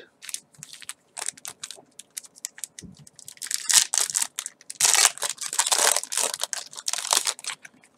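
Foil wrapper of a Yu-Gi-Oh! booster pack crinkling and tearing open in the hands. It is a run of sharp crackles that grows denser and louder about three and a half seconds in.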